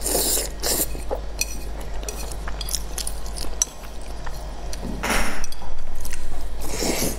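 Chopsticks clicking against a ceramic dish while a person eats mianpi noodles, with a longer slurp of noodles about five seconds in and another near the end.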